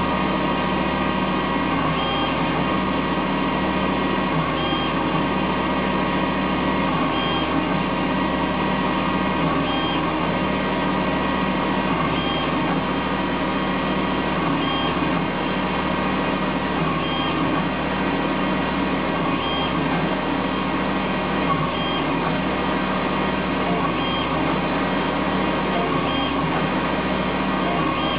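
Emco Turn 120 CNC lathe running a program: a steady mechanical whine from its spindle and drive motors. It repeats a cycle about every two and a half seconds, with a short high blip and a brief break in the low hum each time.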